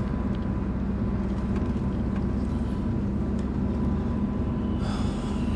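Steady engine and road noise of a moving van, heard from inside the cabin.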